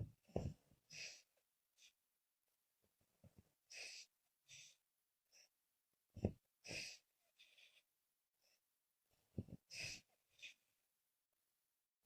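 A woman snoring in her sleep, faint: four times, about every three seconds, a short low snore followed about half a second later by a breathy hiss of air.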